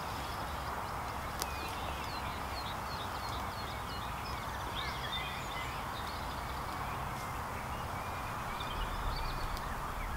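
Small birds chirping and singing from the hedgerow, many short calls over a steady outdoor hiss and low rumble, with soft footsteps of rubber boots through grass.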